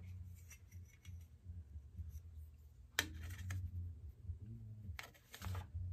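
Scissors cutting cloth in short snips, one about three seconds in and another near the end, over a faint low hum.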